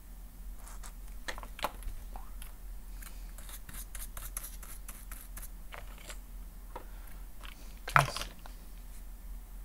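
Small scattered clicks and scratches of hand tools and parts being handled on a phone-repair bench, with one louder knock about eight seconds in, over a steady low electrical hum.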